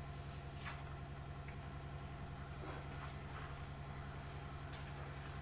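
A spatula stirring grated beetroot and sugar in a nonstick frying pan, with a few faint scrapes against the pan. A steady low hum sits under it.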